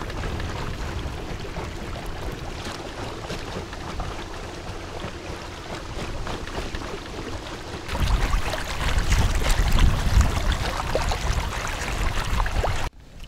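Strong storm wind buffeting the microphone, an even rushing noise with a heavy low rumble that grows louder and gustier about eight seconds in, then cuts off suddenly near the end.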